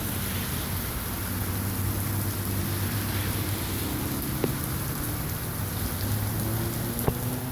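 Rain and hail falling steadily, with two sharp knocks, one near the middle and one near the end, and a low hum underneath.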